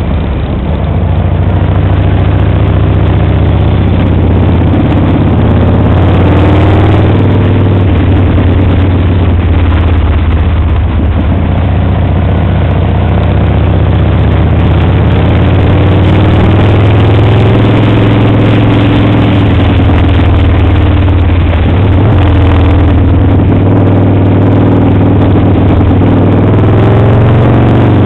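Motorcycle engine heard from a helmet-mounted camera, its revs rising and falling again and again through gear changes over a loud, steady low rumble.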